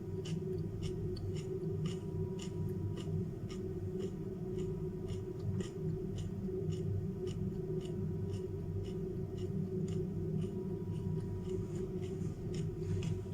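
Close-up crunchy chewing of raw carrot, an even crunch about three times a second, over a steady low hum.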